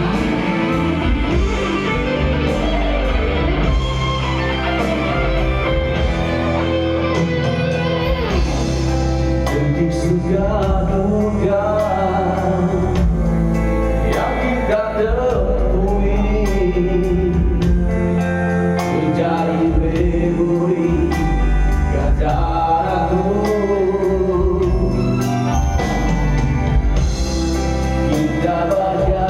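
A song playing: a voice singing a melody over instrumental backing with a steady bass.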